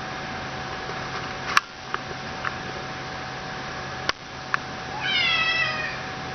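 A cat meows once, briefly and slightly falling in pitch, about five seconds in, after a few short clicks, over a steady hiss and hum.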